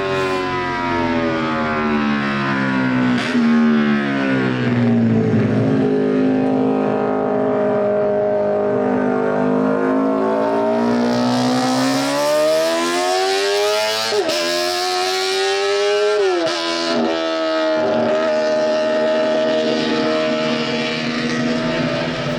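Honda six-cylinder four-stroke GP racing motorcycle engine running hard. Its pitch falls over the first few seconds, climbs again, then drops sharply twice as the throttle is shut, and holds a steady note near the end.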